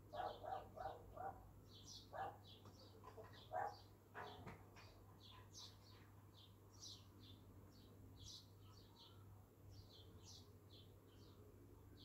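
Small birds chirping faintly and repeatedly in a garden. A dog barks in a quick run of about five at the start, then a few single barks over the next four seconds.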